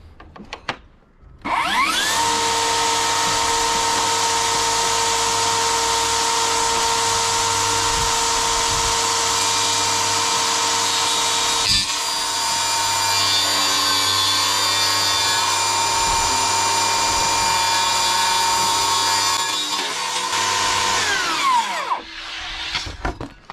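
DeWalt FlexVolt cordless table saw switched on, its blade spinning up with a rising whine and then running steadily. From about halfway the pitch drops slightly while the blade rips through a board. Near the end it is switched off and winds down with a falling whine.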